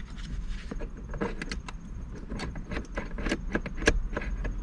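Irregular light clicks and rattles of small metal parts as a shift knob is worked on the shifter shaft, its set screw being started by hand and the spring settled.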